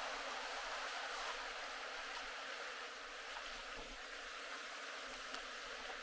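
Steady rush of Atlantic surf washing against black lava rocks, an even noise with no distinct wave crashes.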